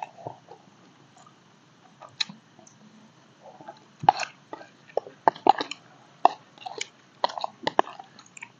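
Two people eating with spoons from plastic bowls: sharp clicks and scrapes of the spoons against the bowls, with chewing. The clicks come thick and fast from about halfway through.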